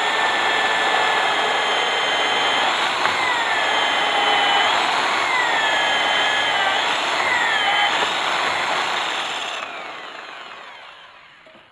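DeWalt DW580EK diamond core drill cutting dry into a stone slab, a loud grinding whine whose pitch sags and jumps back up several times as it cuts. About ten seconds in it is switched off and winds down as the core bit comes out of the finished hole.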